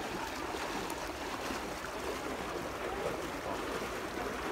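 Steady rush of running water in a penguin enclosure's pool.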